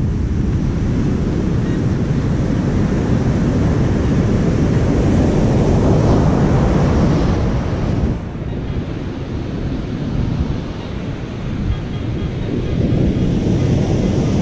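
Wind buffeting the microphone over the steady wash of heavy surf. The rush builds to a peak about halfway through, drops off suddenly, then picks up again near the end.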